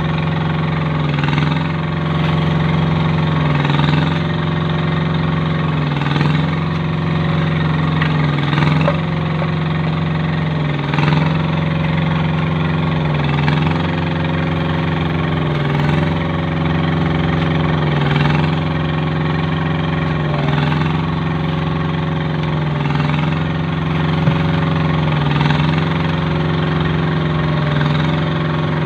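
Engine driving a kerb-stone making machine, running steadily, its tone dipping briefly and regularly about every two and a half seconds.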